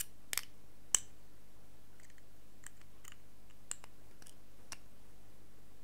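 A few light, irregular clicks and ticks from small hand tools and wire being handled, the sharpest about a second in, over a faint steady hum.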